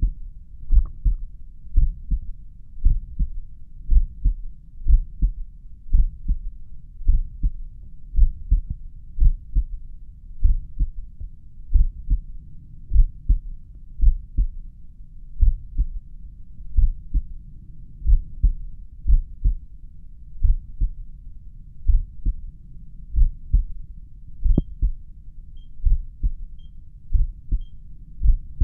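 Human heart heard through a stethoscope at rest, probably at the mitral area: a slow, steady lub-dub of paired low thumps, a little under one beat a second (about 50 a minute).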